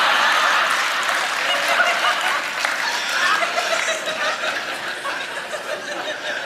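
A large congregation laughing and applauding, a dense mass of many voices and clapping that slowly dies down.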